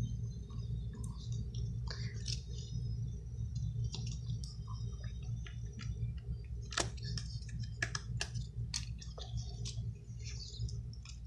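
Small scattered clicks and taps of a pentalobe screwdriver and tiny screws being taken out of an iPhone 6 Plus, with a few sharper clicks past the middle. A steady low electrical hum runs underneath.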